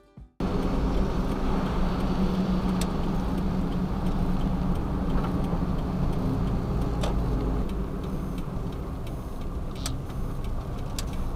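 Kei van driving on a wet road, heard from inside the cabin: a steady drone of engine and tyre noise. It starts suddenly about half a second in, with a few faint ticks scattered through it.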